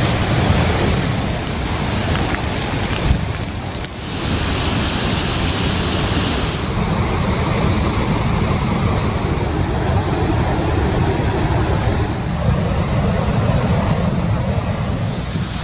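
Niagara Falls: the loud, steady rush of water pouring over the falls and crashing into the river below, with wind buffeting the microphone. The sound shifts briefly about four seconds in.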